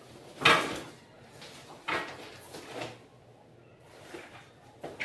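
A wetsuit being handled and shaken out: several short rustling swishes of fabric, the loudest about half a second in.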